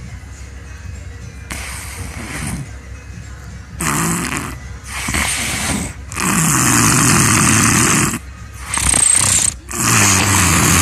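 Loud, rough human snoring: a string of harsh snores, each lasting about one to two seconds with short breaks between them. They start about a second and a half in and get louder from about four seconds in.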